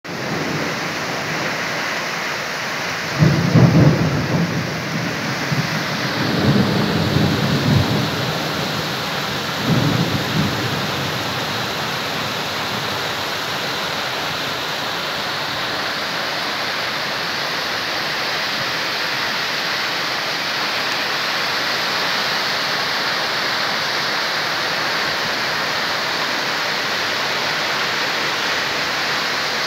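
Torrential rain pouring steadily, with three rolls of thunder about three, six and ten seconds in.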